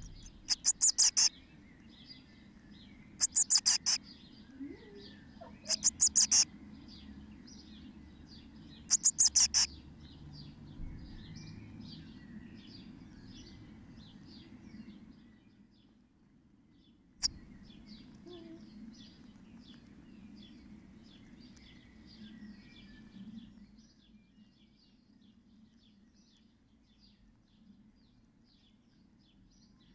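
Blue tit nestlings in a nest box giving faint, rapid high chirps throughout. Four loud, fast trilling bird calls come in the first ten seconds, and there is a single sharp click about 17 seconds in.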